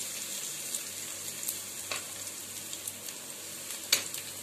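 Bread cubes frying in hot oil on a flat dosa griddle: a steady sizzle with small crackles, and one sharp tap about four seconds in.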